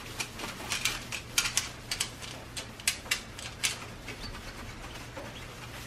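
A rag scrubbing a chrome grille surround: a run of short, irregular rubbing and scuffing strokes over a faint low steady hum.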